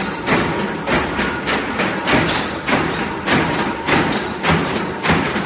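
Expanded metal machine running on steel sheet fed off a roll, punching and stretching the sheet into mesh: a steady rhythm of strokes, about two a second, over continuous machine noise.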